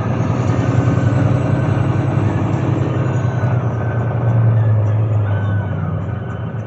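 Volvo D13C 13-litre straight-six diesel engine of a Volvo 9800 coach running with a steady low drone, swelling briefly about four seconds in and easing slightly near the end.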